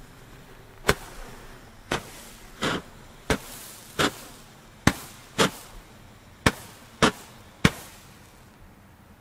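Two Weco Fire Fantasy Roman candles firing side by side: about ten sharp pops at uneven intervals, each launching a coloured star, with the last shot a little before the end.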